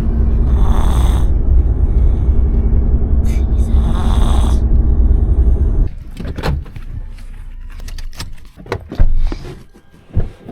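Steady low rumble of a moving car heard from inside the cabin, with a sleeping child breathing heavily twice, about three seconds apart. About six seconds in the rumble cuts off, leaving scattered knocks and clicks and one loud thump near the end.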